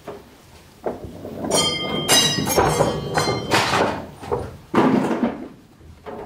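A clatter of knocks and scraping with a metallic ringing in the middle, then a single sharp loud thud about five seconds in.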